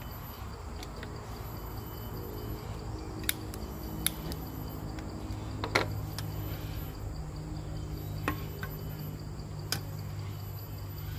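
Crickets chirping steadily over a low, even hum, with five sharp clicks scattered through, the loudest about six seconds in.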